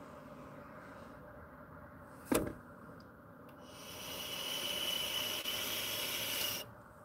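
A sharp click a little over two seconds in, then about three seconds of steady airy hiss as a vape pen is drawn on, cutting off abruptly when the inhale stops.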